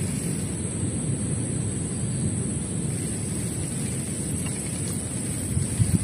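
Wind buffeting the microphone: a steady low rumbling noise with a couple of brief louder gusts near the end.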